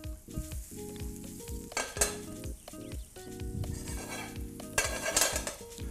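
Quartered button mushrooms sizzling in a hot frying pan as they are stirred and turned with tongs, just after going into the reheated pan. The sizzle swells sharply about two seconds in and again near the end.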